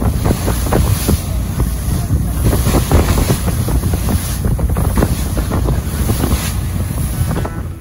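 Water rushing and splashing along the hull of a head boat under way at speed, with wind buffeting the microphone as a steady low rumble.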